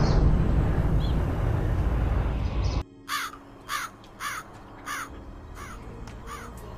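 Loud suspense music that cuts off abruptly almost three seconds in, then a crow cawing six times, about one caw every two-thirds of a second.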